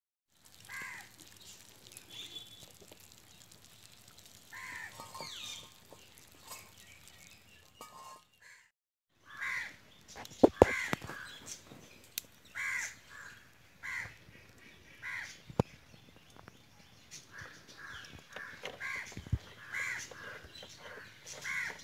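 Crows cawing repeatedly, the calls coming more often in the second half. A few sharp clicks or knocks are mixed in, the loudest about ten seconds in.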